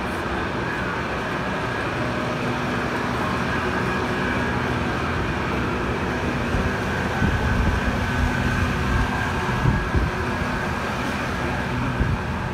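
A steady mechanical drone with a few steady hum tones in it. From about halfway through, irregular gusts of wind buffet the microphone.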